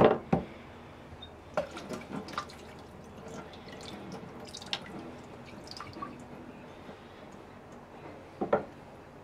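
Water dripping and splashing in a stainless steel sink while a kanna blade is wetted, with hard knocks from a whetstone set down at the start and again, twice in quick succession, near the end, and light clicks between.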